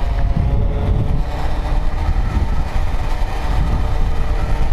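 Yamaha sport motorcycle's engine running steadily while riding along at road speed, under a heavy low rumble of wind and road noise on the bike-mounted microphone.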